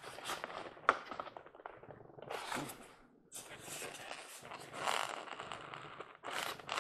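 Rustling and scraping of packaging being handled, with a few sharp clicks, as a model train caboose is unwrapped from its box.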